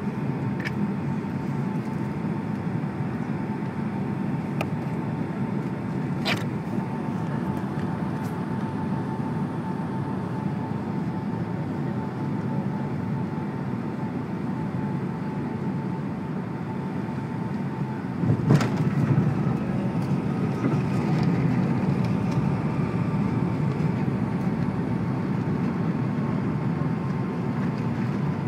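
Airliner cabin noise over the wing on final approach: steady engine and airflow noise with a thin steady whine. About two-thirds of the way through, a sudden thump as the wheels touch down, followed by a louder rumble as the plane rolls along the runway.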